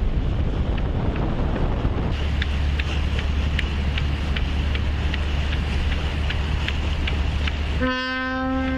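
Wind rumbling on the microphone, with light ticks about three times a second. Near the end a single steady horn blast about a second long cuts in.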